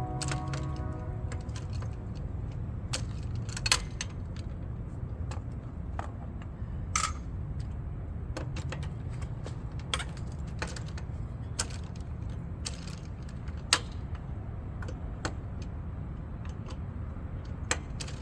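Scattered metallic clinks and taps of hand tools and loose bolts while working on a brake assembly, a few seconds apart and irregular, over a steady low hum.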